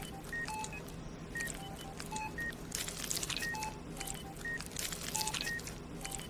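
Short electronic beeps at two alternating pitches, two or three a second, in the manner of an operating-room patient-monitor sound effect. They play over a bed of crackling clicks and a low steady hum.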